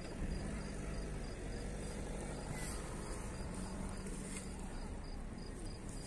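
Open-field ambience: an insect chirps in a regular, high-pitched pulse over a steady low rumble.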